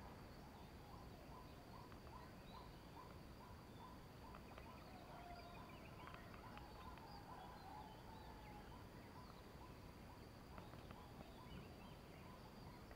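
Near silence: faint outdoor ambience with a few scattered faint bird chirps.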